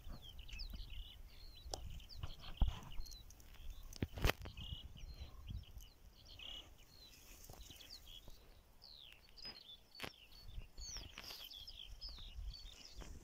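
Small birds singing, a steady stream of quick high chirps and short rising and falling notes, over a low rumble strongest at the start and near the end, with a few sharp clicks.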